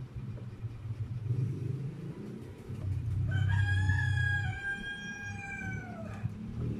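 A rooster crowing once, one long call of about three seconds starting about three seconds in, over a steady low rumble.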